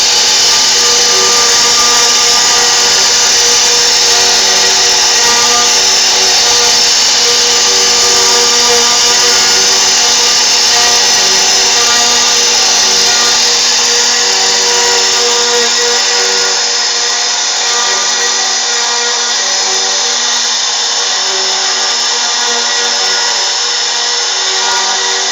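CNC router spindle running steadily through a carving pass, a loud even whine with several steady tones over a hiss. The deepest part of the sound drops away about two-thirds of the way through.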